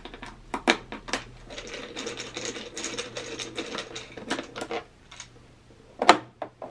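A hand screwdriver backs out the screw of the plastic air-filter cover on an inverter generator. There are a few sharp clicks, then a few seconds of rapid ticking and scraping as it turns, and a single loud click near the end.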